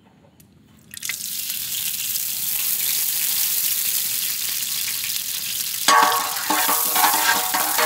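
Homemade cow ghee sizzling and hissing in a large, hot metal pot. The sizzle starts about a second in and holds steady, then about six seconds in turns fuller and louder.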